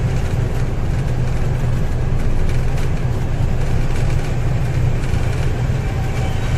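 Truck engine running steadily as the lorry drives along a highway, heard from inside the cab: a loud, low drone with road noise over it.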